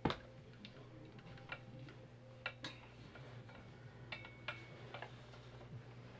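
Faint, irregularly spaced light clicks and taps from handling papers and objects on a table, over a low steady hum.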